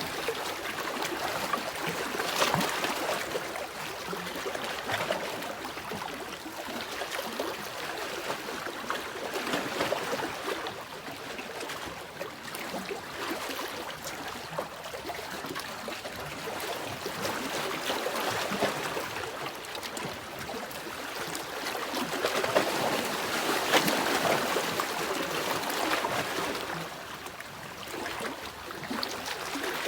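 Sea waves washing ashore, the water noise surging and easing off in slow swells several seconds apart, with a hissing, trickling wash.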